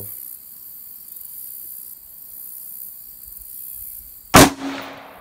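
A single shot from a CMMG Mk4 T AR-15 rifle firing a .223 Remington handload, a little over four seconds in: one sharp, loud crack with a short echo trailing off. Insects buzz steadily in the background.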